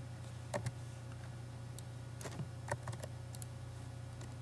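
Irregular computer keyboard clicks, about ten scattered taps, over a steady low hum.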